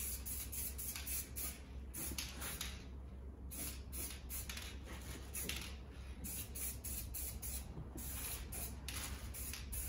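Aerosol spray-paint can hissing in repeated short bursts, with short gaps between them, as paint is sprayed onto metal turbo pipes.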